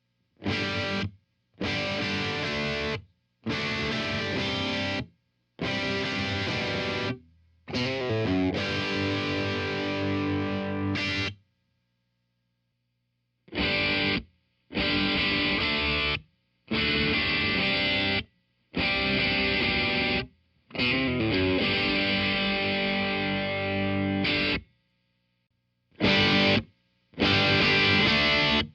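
Distorted electric guitar through a Blackstar Studio 10 6L6 valve amp, played in short chord phrases about a second and a half long, each stopping dead into silence. A longer phrase ends each half. After a two-second gap, a second set of the same phrases comes back with a different tone, its treble trimmed.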